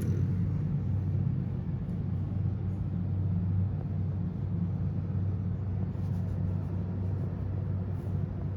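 Road vehicle in motion, a steady low rumble of engine and road noise.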